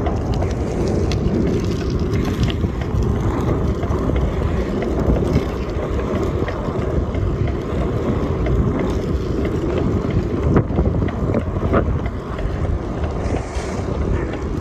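Wind buffeting the camera microphone on a moving bicycle, a steady rushing noise, with tyre noise from the asphalt underneath and a few small knocks late on.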